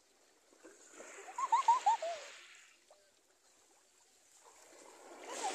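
Water splashing as people wade in shallow sea, with a quick run of five short high-pitched cries about a second in. More splashing and a few cries come near the end.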